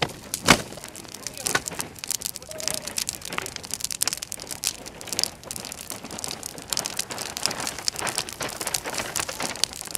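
Bonfire of painted canvases and their frames crackling, a dense irregular run of snaps and pops, with one sharp loud crack about half a second in.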